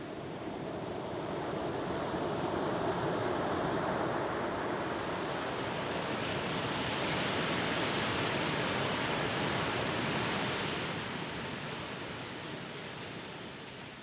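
Ocean surf breaking and washing up a beach: a steady rushing that swells to its loudest about midway and fades out near the end.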